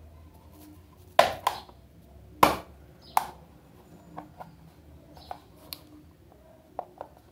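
Hard-shell glasses case snapped shut and opened by hand, the lid giving several sharp plastic clacks in the first three seconds or so, then lighter clicks and taps of handling.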